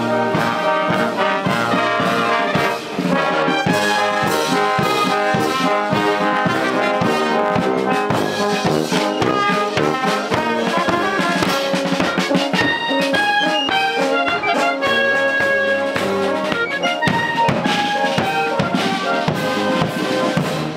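Military brass band playing a march: brass melody and harmony over a steady drum beat.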